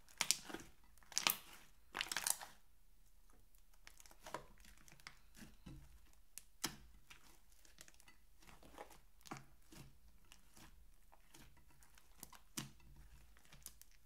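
Thick slime squeezed and pressed by hand in a glass dish, giving sticky, wet crackles and pops. A burst of louder crackling comes in the first couple of seconds, then single pops every so often.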